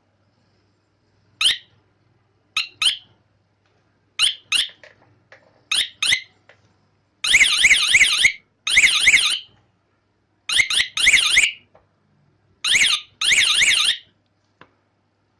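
Electric bicycle horn sounding a run of short high chirps, mostly in pairs, then several longer siren-like bursts of about a second each whose pitch warbles rapidly up and down.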